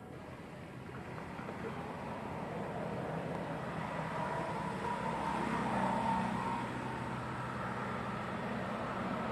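Low, steady engine hum of a motor vehicle that grows louder to a peak about six seconds in.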